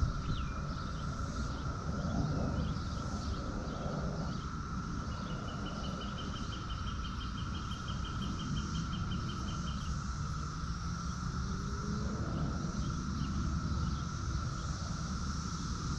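Outdoor ambience with a steady insect drone and a low rumble, and a bird trilling rapidly and evenly for about five seconds midway.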